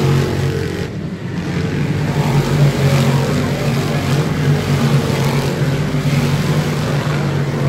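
Race car engines running together on a dirt oval in a steady, loud drone, with a brief dip about a second in.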